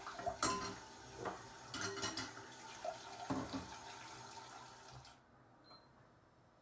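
Kitchen tap running into a stainless-steel sink while hands rinse something under it, with several light knocks and clinks against the sink. The water sound cuts off abruptly about five seconds in, leaving near quiet.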